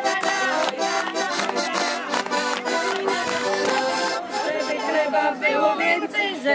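Accordion playing a brisk folk tune between verses of a harvest song, with a steady beat of chords. About four seconds in, it gives way to women's voices.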